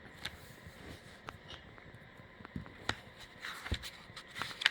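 Faint scattered clicks and taps, with a short rustle shortly before the end: small objects being handled.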